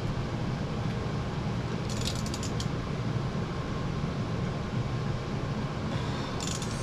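Wrench tightening a mini bike's front axle nut: two short runs of rapid metal clicks, about two seconds in and again near the end, over a steady low hum.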